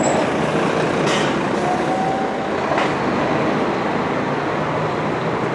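Diesel coach engines running as buses manoeuvre and pass close by, a steady heavy rumble, with two brief hisses about one and three seconds in.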